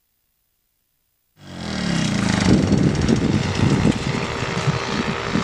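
Wind buffeting the microphone in irregular gusts over a steady paramotor engine hum, cutting in suddenly about a second and a half in.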